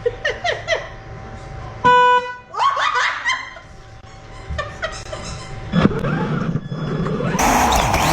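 A horn gives one short, steady honk about two seconds in, the loudest sound here. Voices before and after it, and a steady rushing noise near the end.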